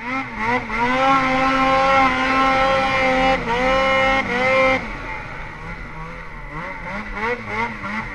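Ski-Doo snowmobile engine revving hard with small dips in pitch, then easing off about five seconds in to lower revs that rise and fall with the throttle.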